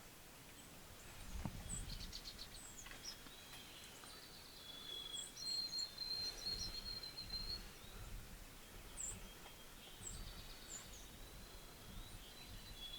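Songbirds chirping and singing, with a high, even trill that comes and goes several times, over soft low rumbles of wind on the microphone.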